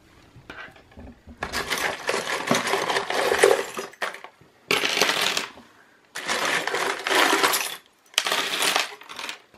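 A heap of mixed costume jewelry (metal chains, bangles, rings and glass bead strands) tipped out onto a tabletop, clattering in four bursts with short pauses between.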